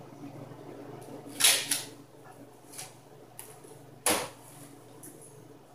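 Bangs and knocks from the apartment upstairs, heard through the ceiling, over a steady low hum. There is a double bang about a second and a half in, a couple of lighter knocks after it, and the loudest bang about four seconds in.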